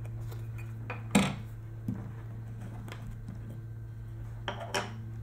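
Plastic camera body cap and lens rear cap being twisted off, with the caps and the lens set down on a wooden table: a few sharp clicks and knocks, the loudest about a second in, over a steady low hum.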